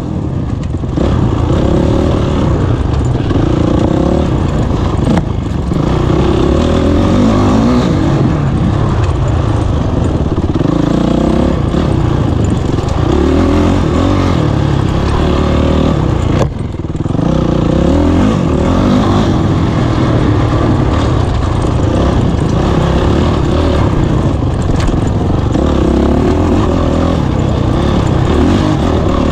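Honda CRF450 single-cylinder four-stroke dirt bike engine revving up and falling back over and over under hard throttle, with a brief drop in level about halfway through.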